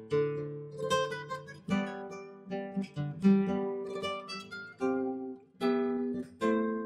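Background music: a guitar picking notes and chords, each struck note ringing and fading before the next.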